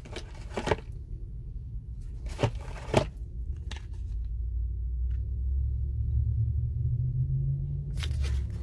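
Crinkling and tearing of makeup packaging as a blush is unwrapped, a handful of sharp crackles, over a low vehicle rumble that grows louder in the second half.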